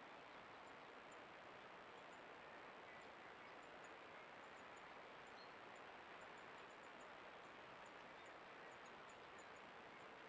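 Near silence: the steady hiss of a Browning Spec Ops Edge trail camera's microphone, with a faint thin high whine running through it.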